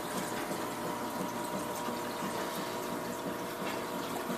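Aquarium filter running: a steady trickle of moving water with a steady hum.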